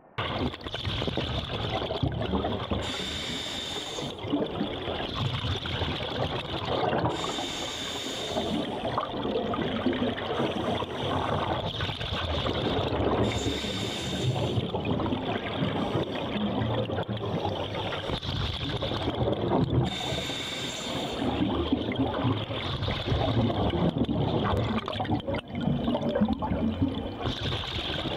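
Scuba regulator breathing heard underwater: a continuous gurgling rush of bubbles, with a short hiss recurring every six seconds or so in time with the breathing cycle.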